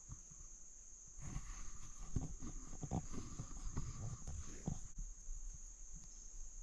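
A steady high-pitched insect drone. From about a second in until near the five-second mark, a run of low thumps and rustling sounds over it.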